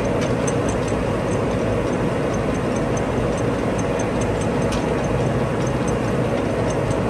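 Warner & Swasey 5A saddle-type turret lathe running with its spindle and large chuck turning under power, a steady gear-driven machine noise. A faint light tick repeats a few times a second.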